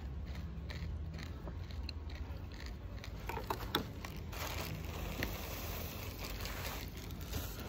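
Mouth clicks of chewing for the first few seconds, then a crinkling plastic bag and granular tapioca flour pouring and rustling onto a bowl of açaí from about four seconds in, over a steady low hum.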